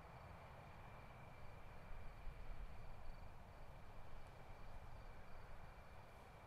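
Faint room tone: a steady low hiss with a thin, steady high whine, and a slight low rumble swelling in the middle.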